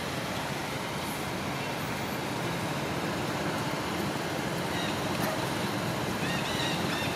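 Steady outdoor background hiss, like wind or distant traffic. From about five seconds in, a quick run of short, high, arching chirps joins it.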